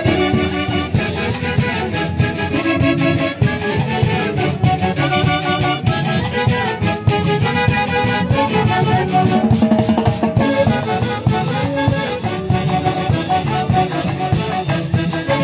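A live Andean festive band (orquesta) plays dance music with a steady beat and a bright, layered melody.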